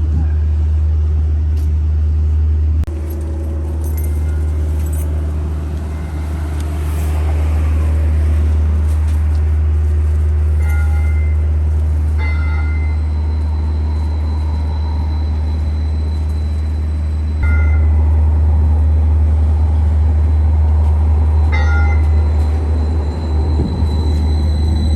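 QLine streetcar running, a loud steady low rumble, with short high tones sounding about five times.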